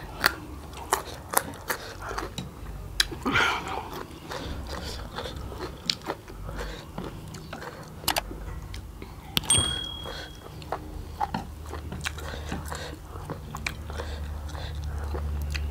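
Close-up eating sounds of two people eating spicy instant noodles with chopsticks: wet chewing with many short sharp clicks. A brief high ring about nine and a half seconds in.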